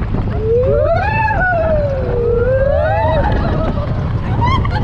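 Steady rumble of a roller coaster train and rushing wind, with long wavering whoops from riders rising and falling in pitch, one held for about three seconds.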